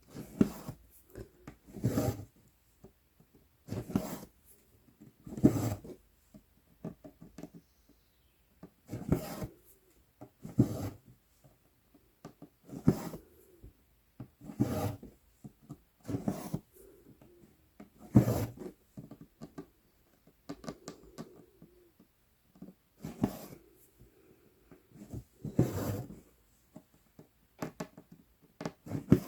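Embroidery floss being drawn through 11-count Aida fabric with a size 24 needle: a short rasping rub about every two seconds as each stitch is pulled through.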